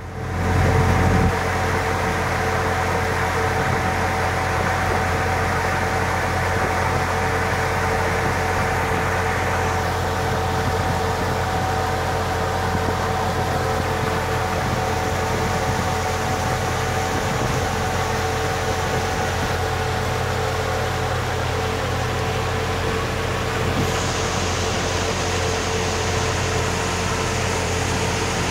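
A pontoon boat's motor running steadily at cruising speed, a constant drone with a steady hum, mixed with the rush of wind and water as the boat moves.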